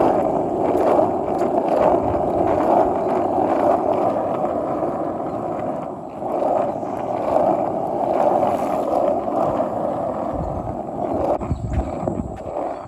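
Budget skateboard with plastic trucks rolling over asphalt: a steady, loud rumble of the wheels on the pavement, dipping briefly about six seconds in.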